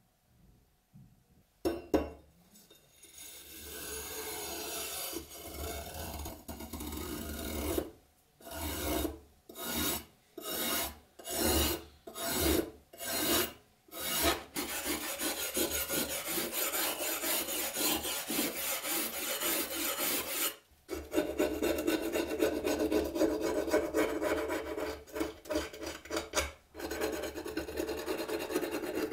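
A stiff hand brush scrubbing thick, flaking rust off a steel machete blade, followed by a small metal scraper scraping the rust loose. The scratching runs steadily, breaks into about six separate back-and-forth strokes about a third of the way in, pauses briefly after the middle, then carries on as continuous scraping.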